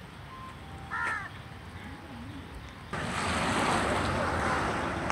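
Heavy rain hissing, fairly quiet at first, with one short bird call about a second in; about three seconds in the rain noise suddenly becomes much louder and stays that way.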